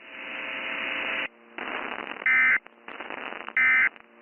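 Emergency Alert System end-of-message tones: short, harsh digital data bursts (SAME 'NNNN' signal), two in this stretch about 1.3 seconds apart, over radio static and a low hum, marking the end of the broadcast warning.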